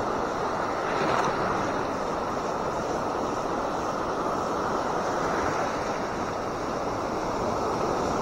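Surf breaking and washing up the beach as a steady rush, swelling slightly about a second in, with wind on the microphone.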